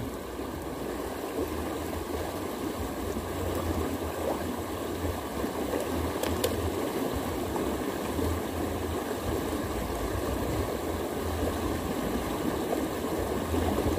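Small river rushing steadily over a shallow riffle.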